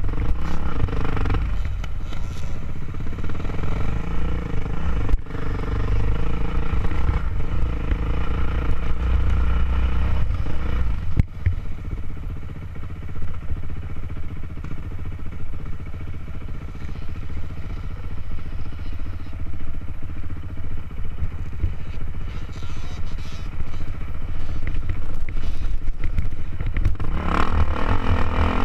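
Dirt bike engine running steadily under load while riding a rough trail, with the engine note shifting as the throttle changes. It gets louder near the end.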